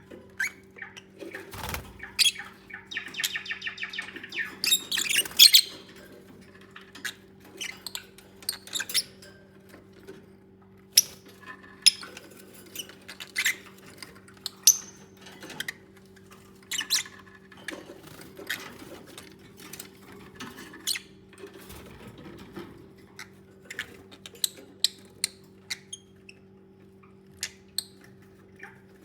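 Pet lovebirds chirping and squeaking in short, sharp calls, with a quick run of rapid chatter about three to five seconds in. A steady low hum runs underneath.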